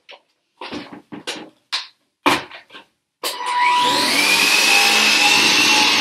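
Cordless stick vacuum cleaner: a few clicks and knocks of handling, then about three seconds in the motor starts with a rising whine and settles into a steady high-pitched run.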